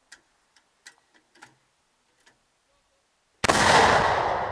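A few faint clicks, then, about three and a half seconds in, a single shot from an FH70 155 mm towed howitzer: a sudden loud blast that fades slowly.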